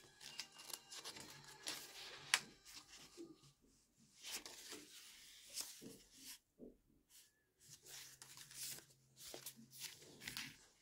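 Paper pages of a handmade traveler's notebook being turned by hand, rustling and flapping with light taps and soft clicks, the sharpest snap about two seconds in.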